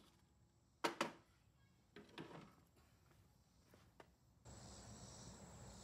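Near silence with a few faint short knocks, then from about four and a half seconds in a steady faint high chirring of crickets.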